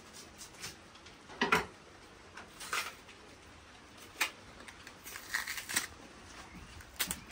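Green plantains being peeled by hand: short, irregular scrapes and snaps as the tough green skin is cut and pulled away, the loudest about a second and a half in.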